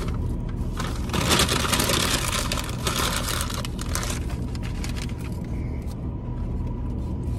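Paper and foil food wrappers crinkling and rustling as they are unwrapped and crumpled, loudest from about one to four seconds in. A steady low rumble from the car runs underneath.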